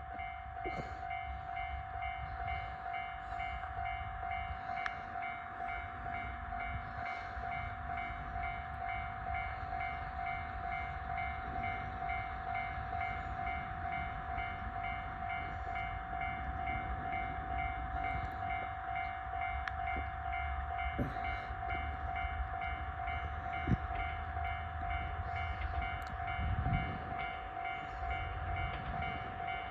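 Japanese level-crossing warning bell ringing without a break, a repeating electronic clanging tone.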